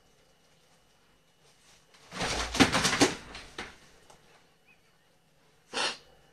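A Jack Russell terrier jumping from a plastic laundry basket onto a bed: a scramble of thumps and rustling about two seconds in, lasting about a second and a half. A short rustle near the end.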